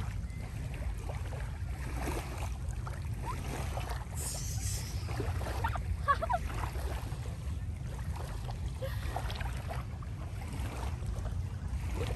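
Steady low wind rumble on the microphone at the seashore, with faint distant voices now and then and a brief hiss about four seconds in.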